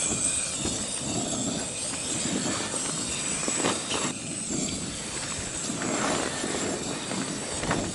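Liquid-fuel camping stove burning under a homemade aluminium oven, running with a steady rushing hiss. A couple of light knocks come about three and a half seconds in and again near the end.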